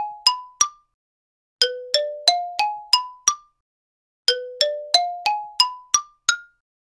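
Bright bell-like dings in quick rising runs, each run climbing note by note. One run finishes at the start, then two more full runs of six or seven notes follow, a second or so apart.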